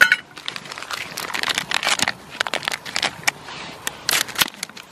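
Plastic food packaging crinkling as it is handled, a dense run of irregular crackles.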